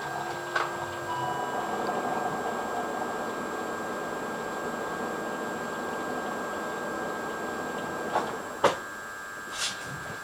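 BMW E39 525i's straight-six engine running with a steady clattering rattle from the engine bay, the rattle the owner is showing (not a diesel). Two sharp knocks near the end.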